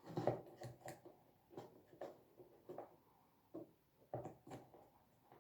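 Faint handling of paper and a glue stick on a table: a string of small, irregular taps, clicks and rustles.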